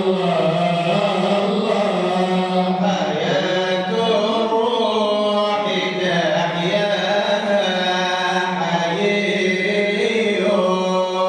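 Arabic devotional chanting of a madih, a poem of praise for the Prophet, sung by a male munshid in long melodic phrases over a steady held low tone.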